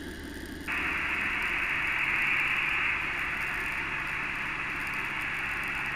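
Steady radio static hiss in the cockpit headset audio, thin like a radio channel. It comes back about a second in after a short break. Underneath it runs the low, even drone of the light plane's engine.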